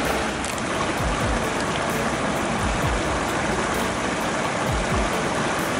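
Steady rushing of flowing river water, with irregular low rumbles underneath.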